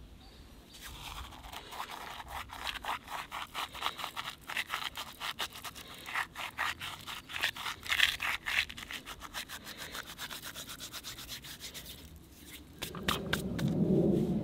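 Cumin seeds crushed by rubbing between the fingers over a pot of minced meat: a rapid rustle of many fine scratches, which stops about twelve seconds in. A louder low rumble starts near the end.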